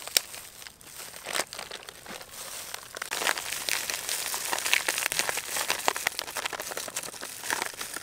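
Plastic flour packet crinkling in gloved hands as it is handled and tipped, with flour pouring from it onto a metal baking tray. The crinkling is scattered at first and grows dense about three seconds in, thinning out near the end.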